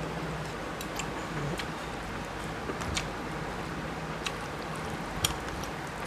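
Close-miked eating by hand: chewing and wet mouth clicks, and fingers mixing rice and fish curry on a plate, heard as scattered short sharp clicks, the loudest about five seconds in, over a steady low hum and hiss.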